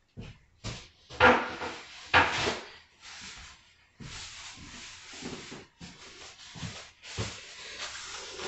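Kitchen clean-up noises: a few small knocks, then two loud short rustles about a second apart, then a paper towel rubbing over the countertop as a spill is wiped up.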